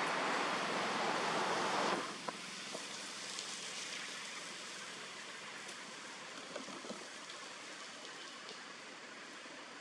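Steady outdoor rushing noise that drops suddenly about two seconds in, then goes on more softly with a few faint clicks.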